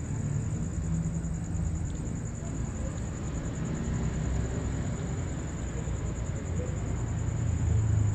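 Steady low mechanical rumble and hum with a constant thin high-pitched whine over it; the hum grows louder near the end.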